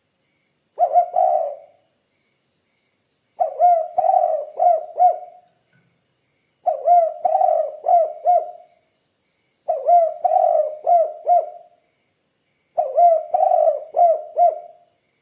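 Spotted dove (tekukur) cooing in repeated phrases, five in all, roughly every three seconds. The first phrase is short, of two notes; the others each run four or five quick low coos.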